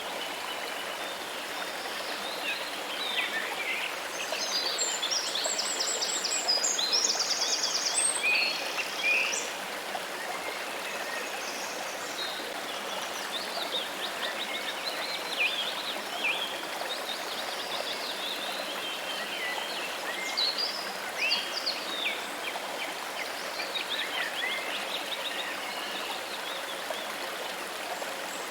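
Steady rush of flowing water, with many birds chirping and trilling over it. The birdsong is busiest, with fast high trills, from about four to nine seconds in.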